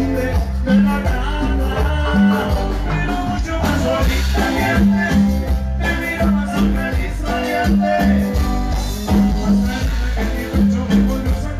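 A live cumbia band playing Latin dance music: keyboards over a repeating bass line, with a steady beat.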